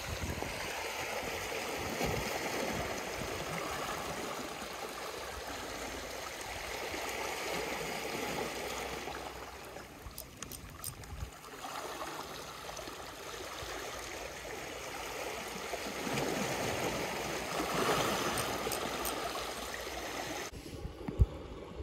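Small waves washing and gurgling against the rocks at the water's edge, rising and falling. A single sharp knock near the end.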